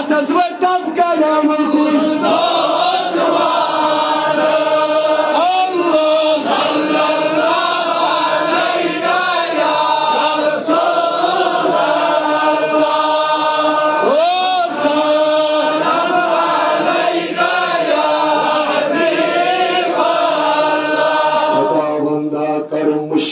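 A man chanting a religious devotional song solo, in long held notes that bend and ornament in pitch, pausing briefly near the end.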